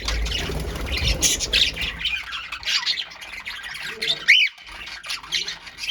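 A colony of pet birds calling and squawking, with many short calls overlapping and one louder call about four seconds in. A low rumble sits under the first two seconds.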